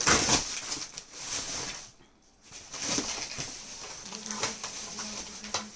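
Rustling and handling of a parcel's packaging, loudest in the first second, with a short lull about two seconds in.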